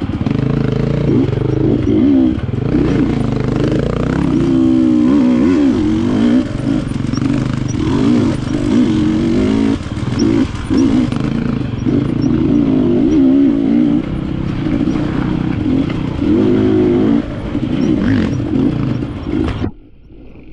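Enduro dirt bike engine ridden on a trail, the throttle rising and falling constantly so the engine note keeps wavering up and down. The sound drops away suddenly near the end.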